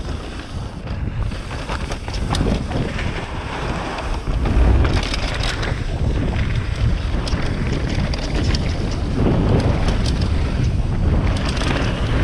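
Wind buffeting a helmet-mounted GoPro's microphone as a mountain bike descends a rough trail at speed, with tyres crunching over dirt and stones and many small knocks and clicks from the bike. A heavier thump comes about four and a half seconds in.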